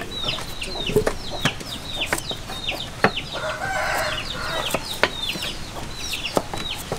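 Chicks peeping over and over, short falling peeps several times a second. Sharp knife clicks and taps come from peeling and slicing eggplants, with a brief scraping sound about three seconds in.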